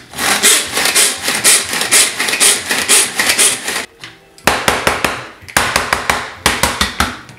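Hand-crank food chopper (Crank Chop) being cranked, its gears clicking rapidly as the blades chop jalapeños in the bowl. It stops briefly about four seconds in, then runs in three shorter bursts.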